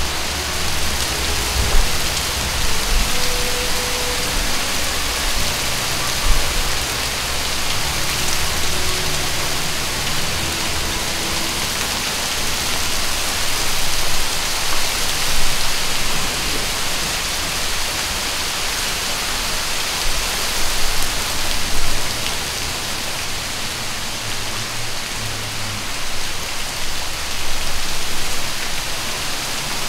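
Sleet falling steadily: an even, dense hiss of ice pellets and rain landing on concrete and dead leaves, with an uneven low rumble underneath for much of the time.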